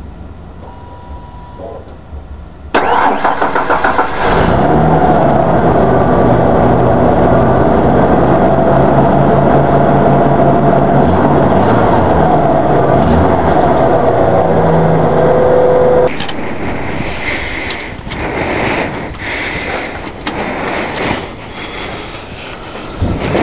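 Pickup truck engine cold-started: it cranks for about a second and a half, catches and runs at a steady fast idle. About two thirds of the way through the engine sound cuts off abruptly, leaving lighter knocks and rattles.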